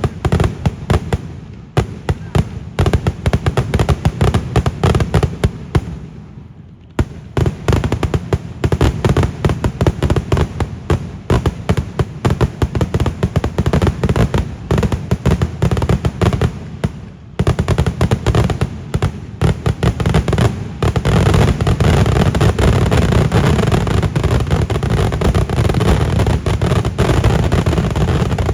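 Kerala festival daytime fireworks (vedikettu) going off as rapid, dense volleys of loud bangs and cracks. There are two brief lulls, about six and seventeen seconds in, and then an unbroken barrage in the last several seconds.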